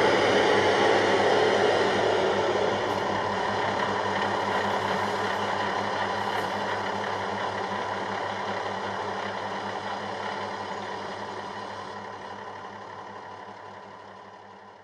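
Diesel engine sound from the O-scale German railbus model's Lenz DCC sound decoder, running steadily at idle. A rushing noise over it dies down in the first few seconds, and the whole sound fades out near the end.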